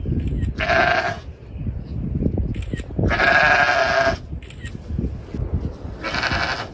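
Sheep bleating three times, the middle bleat the longest at about a second, with low rustling between the calls.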